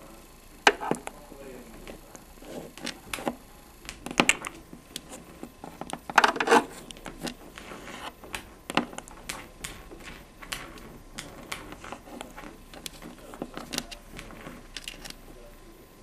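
African grey parrot moving about on a wooden tabletop: scattered small clicks and taps from its beak and claws, with a short call about four seconds in and another about six seconds in.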